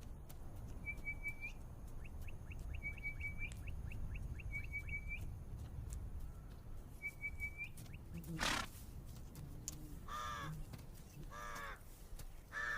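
A bird cawing, three harsh calls about a second apart in the last few seconds, over a steady low rumble of wind, with a few faint, short high chirps earlier and one sharp noise shortly before the caws.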